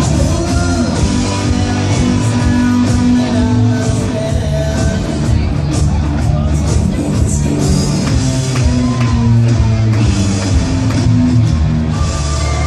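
A live rock band playing loudly, with electric guitar, bass and drums.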